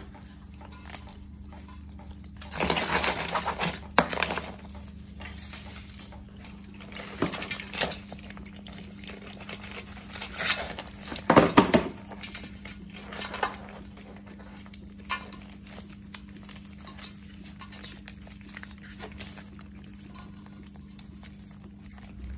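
Live mud crabs being handled in a stainless steel basin: their shells and claws clatter and scrape against the metal in irregular bursts, the loudest a little past halfway, over a steady low hum.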